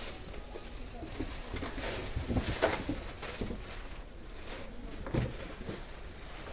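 Shop background noise: a faint murmur of distant voices with a few short knocks or rustles from handling. The loudest knocks come about two and a half seconds in and again just after five seconds.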